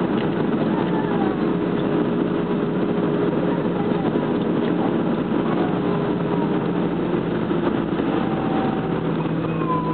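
Airbus A320 jet engines heard from inside the cabin over the wing: a steady hum with several steady tones, no rise in power.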